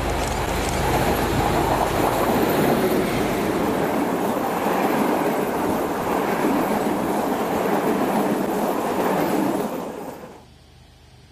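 A train passing close by: steady running noise of wheels on rails, which cuts off suddenly near the end.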